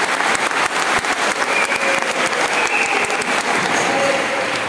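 A large audience applauding: many hands clapping together, loud and continuous.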